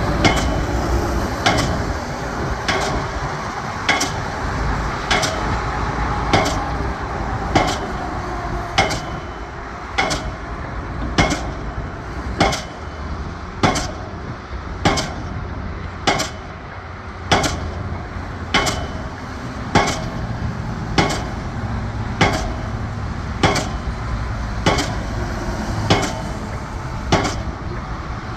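Pile hammer driving a steel H-pile: a sharp metallic strike about every second and a quarter, evenly paced, over a steady low rumble.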